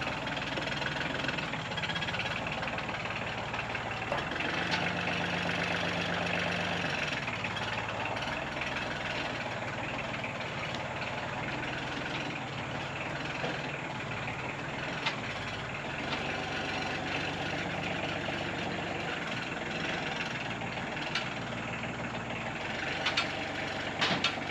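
Compact tractor engine running as the tractor is driven and maneuvered, with a higher, steadier engine note for a couple of seconds about five seconds in. A few sharp clicks or clanks near the end.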